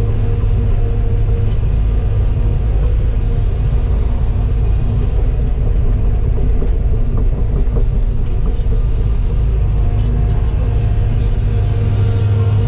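Diesel engine of a tracked Cat machine running steadily under work, a loud constant low drone with scattered light metallic clicks and clanks.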